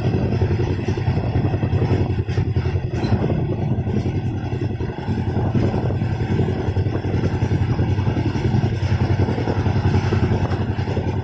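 Indian express passenger train running at speed, heard from a window seat inside the coach: a steady rumble of the wheels on the rails.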